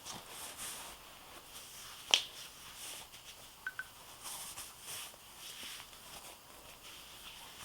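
Faint rustling of a waist trainer being pulled around the body and fastened, with one sharp click about two seconds in.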